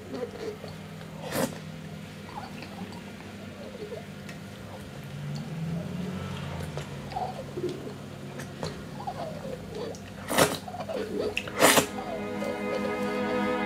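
A man slurps and sucks food noisily from a glass jar, in three loud short bursts: one early and two close together near the end. Under it are a low steady hum and scattered short vocal sounds, and bowed string music comes in near the end.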